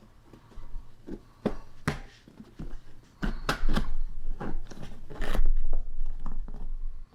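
Back panel of a flag display case being pressed into place by hand: a run of knocks, clicks and scraping, with handling thumps that grow busier and louder about three seconds in.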